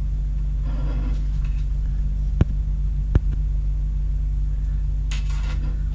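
A steady low electrical hum, with two sharp clinks of a metal knife and fork about a second apart and faint rustling of handling.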